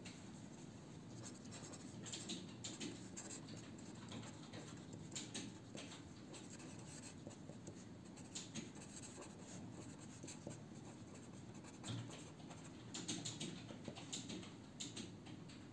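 A pen writing on paper: faint, irregular scratching strokes as letters are written, with short pauses between words.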